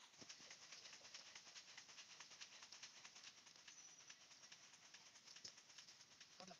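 Near silence: a faint outdoor background of fast, high-pitched ticking.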